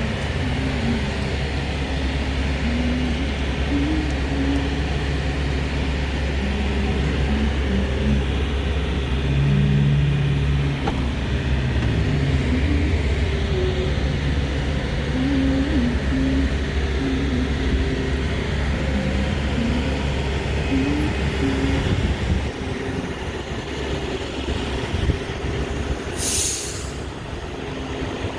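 Steady low rumble of a passing heavy vehicle, easing off about three-quarters of the way through, with a short hiss near the end.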